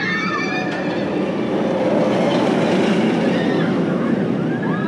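Bolliger & Mabillard hyper coaster train running over its steel track close by, a loud rumble that builds over the first couple of seconds and then holds steady as the train passes overhead.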